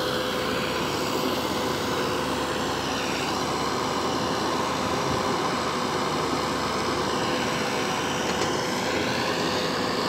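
Concrete pump running steadily, its engine giving an even drone with a constant hum.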